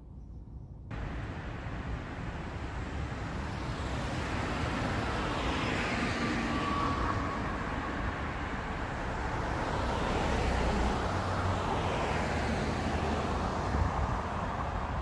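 Road traffic noise on a city street: a steady wash of tyre and engine noise from passing cars. It starts abruptly about a second in and swells as vehicles go by, most noticeably around six and ten seconds in.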